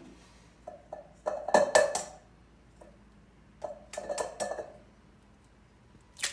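Eggs being cracked against the rim of a stainless steel mixing bowl: clusters of sharp taps with a metallic ring. The taps come about a second in and again about four seconds in.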